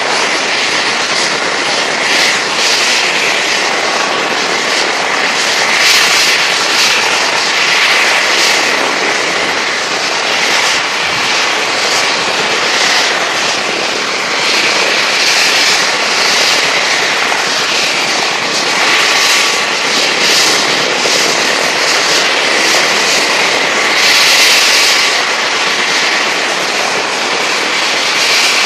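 Attack helicopter's turbine engines running on the ground with the rotor turning: a steady, loud rushing whine, with louder surges of hiss now and then, the strongest a few seconds before the end.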